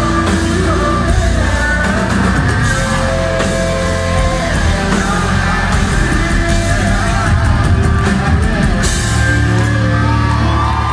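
Live metal band playing amplified in a large hall, with the singer's voice over guitars and drums, heard from inside the crowd. About nine seconds in there is a cymbal crash, and a chord is then held.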